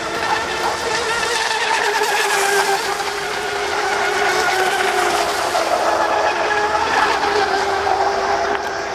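Battery-powered radio-controlled speedboat running flat out across the water: a steady high electric-motor whine that drifts slightly in pitch as the boat turns and passes, over a hiss.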